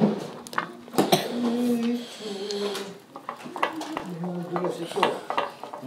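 A spatula stirring slime in a bowl, with irregular clicks, knocks and scrapes against the bowl as the borax activator is mixed in.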